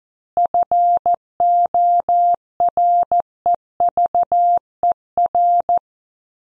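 Morse code at 14 words per minute: a single steady beep keyed on and off in short dots and longer dashes, generated by a headline-practice website. It stops about a second before the end.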